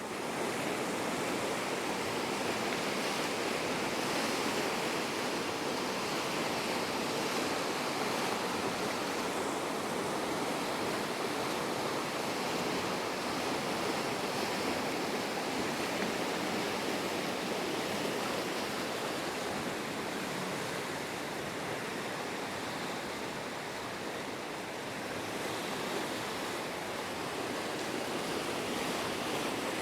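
Steady rushing of river water over rapids, an even noise with no breaks.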